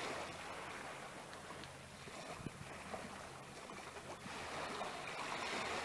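Faint wash of sea and wind noise on the shore, with a couple of small clicks about halfway through.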